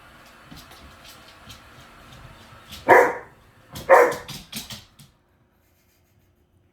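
Alaskan husky barking twice, about a second apart, with a few softer barks after, over the faint whir and ticking of a robot vacuum. All sound cuts off suddenly about five seconds in.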